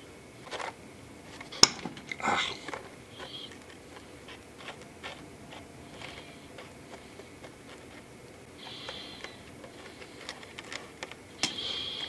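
Paintbrush dabbing and brushing glue onto a paper speaker cone: short scratchy brush strokes mixed with scattered light clicks and taps, the sharpest click about one and a half seconds in.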